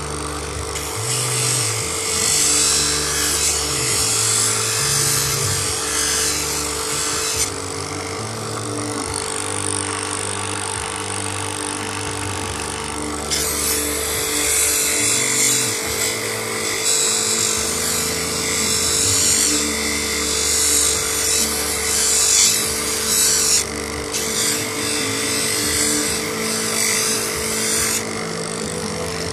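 Small electric lapidary grinder running with a steady hum while a moss agate cabochon is held against its wet spinning wheel. The grinding hisses loudly in three long stretches with short breaks between them as the stone is pressed on and lifted off.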